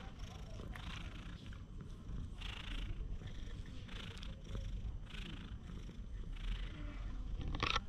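Stray cat purring close to the microphone while its head is stroked: a steady low rumble with a breathy rasp about once a second. A brief sharp rustle near the end.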